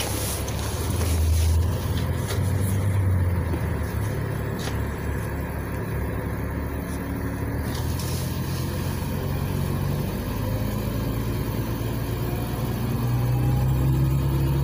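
Cabin sound of a LiAZ 5292.67 city bus on the move: the low hum of its YaMZ-53624 natural-gas engine and drivetrain under tyre and road noise. The engine note climbs gently in the last few seconds as the bus picks up speed.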